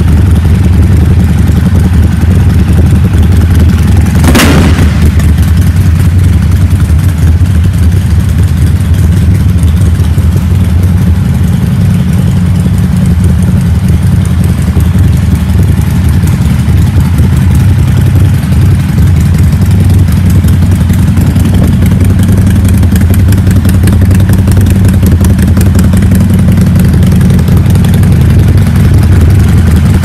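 Harley-Davidson Sportster's air-cooled V-twin engine running at a steady idle, loud and even, with one sharp crack about four seconds in.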